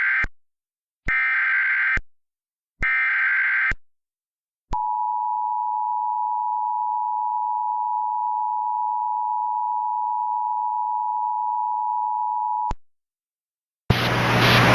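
Emergency Alert System tones. First comes the end of one SAME header data burst and then two more, each a short harsh digital warble, marking the start of an emergency alert. Then the EAS two-tone attention signal (853 and 960 Hz sounding together) is held steady for about eight seconds and cuts off abruptly.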